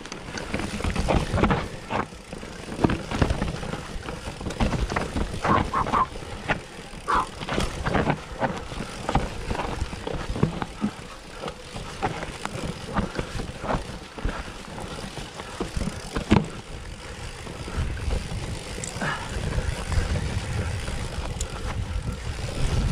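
Commencal Meta v4.2 mountain bike riding down a rough dirt trail: a steady rumble of tyres over the ground, broken by many short knocks and rattles from the bike as it hits bumps.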